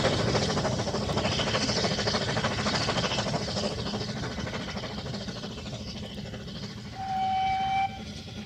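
Narrow-gauge steam train running on the track, its noise fading steadily as it draws away, then one short whistle blast of just under a second near the end.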